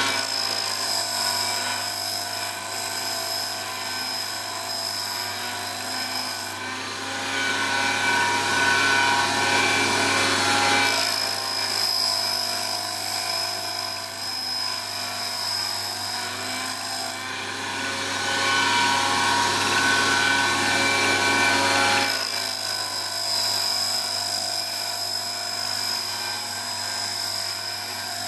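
Wolf Precision Valve Refacer running, its grinding wheel recutting the 30-degree face of a spinning exhaust valve to remove a worn step. A high-pitched whine rides over the steady machine noise in three stretches of about six seconds, dropping away for a few seconds between them.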